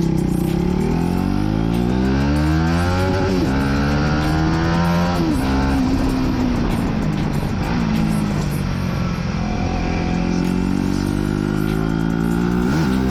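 Aprilia RS4 125's single-cylinder four-stroke engine pulling through the gears: the revs climb and fall sharply at upshifts about three and five seconds in, hold fairly steady for a while, then climb and fall again near the end.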